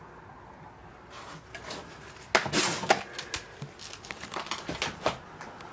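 Footsteps crunching over fallen plaster and debris on a floor: irregular crackling and crunching, loudest in a cluster of crunches about two and a half seconds in.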